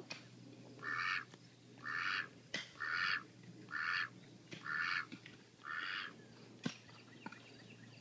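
White domestic duck quacking, six quacks about one a second, stopping about six seconds in. A single sharp click follows near the end.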